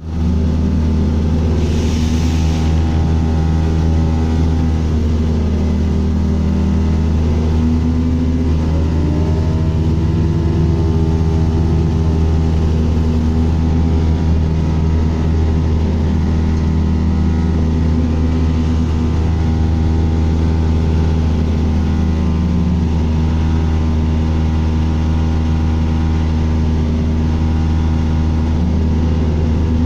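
Bus running with a steady low engine drone and hum, with pitched tones above it wavering up and down: the weird noise this bus is making. A brief hiss comes about two seconds in.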